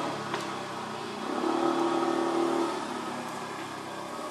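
A motor engine runs with a steady hum, louder for about a second and a half in the middle.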